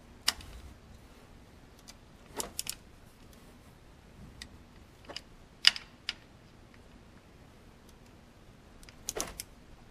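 Torque wrench and socket clicking on the oil pump bolts as they are torqued to 89 inch-pounds. Sharp metal clicks come in a few small groups, the loudest a little past halfway.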